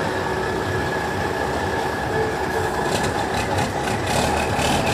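Cummins N14 straight-six diesel of a Freightliner FLD tractor-trailer running steadily at low speed through a tight turn, with a faint steady whine. From about three seconds in it is joined by a quick run of clattering rattles.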